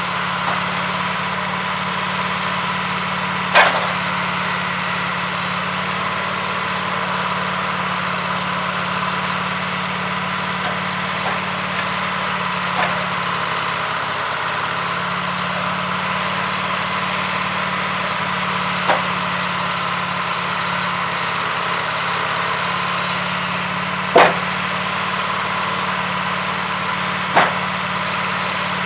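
Wood-Mizer LT15 Go portable sawmill's engine running steadily, with a few sharp knocks over it.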